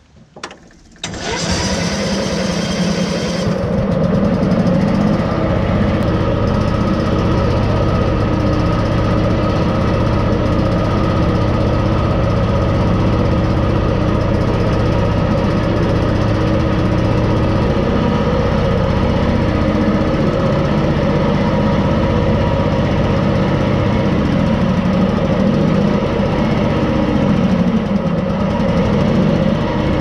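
Briggs & Stratton Vanguard V-twin engine in a small skid steer starting about a second in, then running steadily on a test run after the ignition rewiring.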